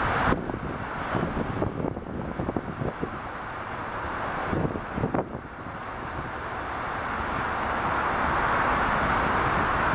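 Airbus A330-300's Rolls-Royce Trent 700 jet engines on landing approach: a steady rushing jet noise that grows louder over the last few seconds as the airliner nears. Wind buffets the microphone throughout.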